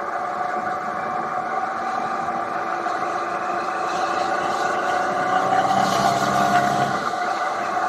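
Triumph Tiger 800 XRt motorcycle's three-cylinder engine running steadily at cruising speed, with a hiss of wind and road noise. It gets a little louder between about five and seven seconds in.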